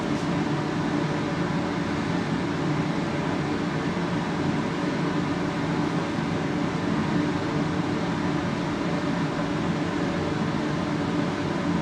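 Steady mechanical hum, like a fan or motor running, with a few low held tones.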